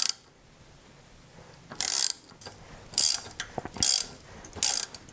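A ratcheting wrench turning a metric 8 mm tap into a steel plate, its pawl clicking in short runs about once a second as the handle swings back between cutting strokes.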